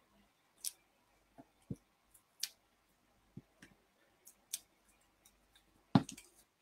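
Light scattered clicks, taps and rustles of paper die-cut pieces being handled and pressed onto a card on a craft mat, with a louder knock about six seconds in.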